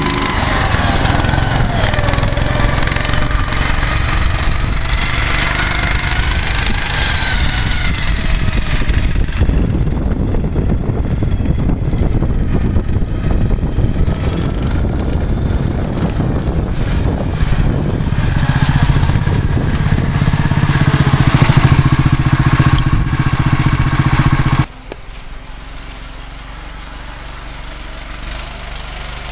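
Prototype snowmobile's 13 hp four-stroke engine running under load through deep snow, its pitch rising and falling as the throttle changes. About 25 seconds in, the sound drops suddenly to a quieter, steadier engine hum.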